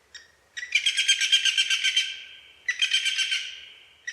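Bird calls: three bursts of fast, rattling chatter, the longest about a second and a half, starting about half a second in, then near three seconds and at the very end.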